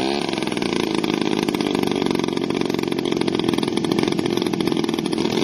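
Small two-stroke chainsaw engine on a large-scale B-29 model airplane running steadily with a fast, even firing buzz, just after catching from an electric starter.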